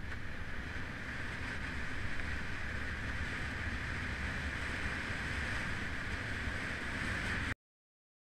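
Wind rushing over the microphone of a camera riding on a road bike at speed, with a low steady rumble of tyres on asphalt. The sound cuts off suddenly near the end.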